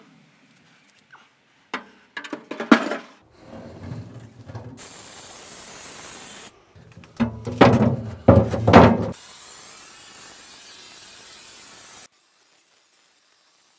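Aerosol cooking-oil spray hissing in two bursts onto a metal grill diffuser plate, a short one and then a longer one of about three seconds that cuts off suddenly. In between, the metal plate clatters and scrapes as it is turned over against the grill.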